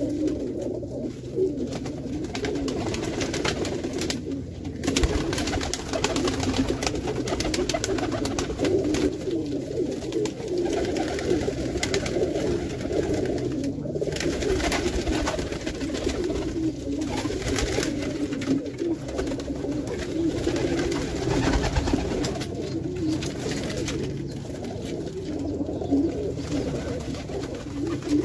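A flock of Pakistani and Indian high flyer pigeons cooing together in a small room, a steady overlapping chorus of low coos.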